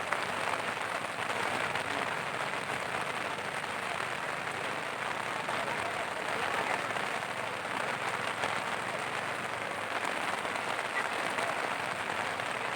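Steady rain falling, an even hiss with no distinct drops or other events standing out.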